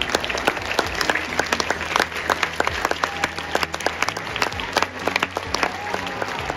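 Football supporters in the stand applauding the players, with many loud, sharp hand claps close by over the wider crowd's clapping.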